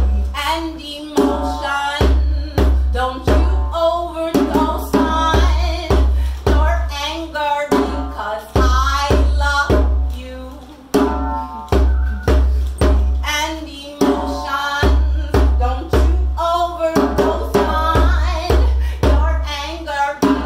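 Live song: a drum kit keeps a steady beat with deep low pulses underneath, while a woman sings a wordless vocal line over it.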